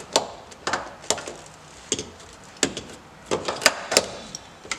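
Irregular sharp clicks and knocks of tools and parts being handled while the ignition switch is mounted on the steering column, about eight in all.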